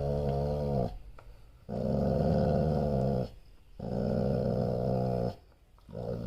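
A dog growling deeply in long, drawn-out growls of about a second and a half each, three in a row and then a shorter one, with brief pauses between them. It is a warning growl from a dog guarding its person.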